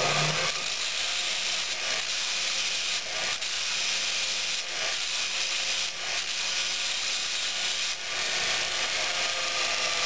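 JET Multitool belt grinder grinding the head of a steel railroad spike on a 100-grit 3M belt: a steady, gritty hiss of abrasive on metal that dips briefly a few times. It is smoothing out the scratches left by the 40-grit belt.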